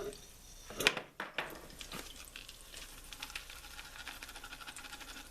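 Faint sizzling and crackling of hot cooking food, with a few sharp knocks about a second in.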